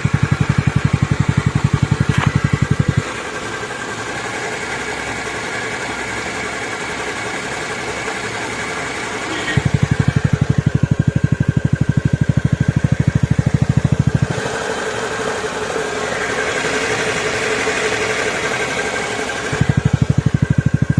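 TVS Ntorq 125 BS6 scooter's single-cylinder engine running after a rebuild with a new cylinder block and piston kit and a repaired crankshaft, sounding clean. It idles with an even pulse and is twice brought up to higher revs for about five seconds each.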